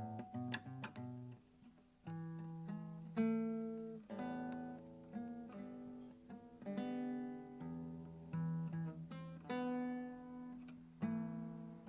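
Solo classical guitar playing a slow melody of plucked notes that ring and fade over held bass notes, with a short pause between phrases about two seconds in.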